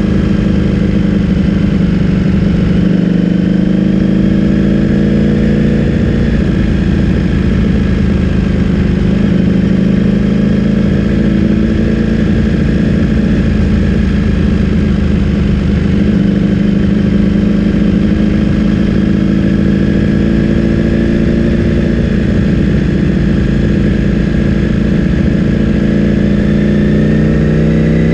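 Ducati Streetfighter V4S's V4 engine through an Akrapovic full-system exhaust, running at a steady pitch with small changes, then rising as the revs climb near the end.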